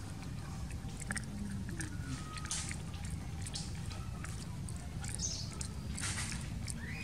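Long-tailed macaque chewing food close up, with irregular crunching clicks and crackles.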